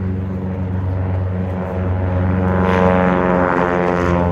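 Propeller airplane engine, a steady drone that swells louder and brighter about two seconds in.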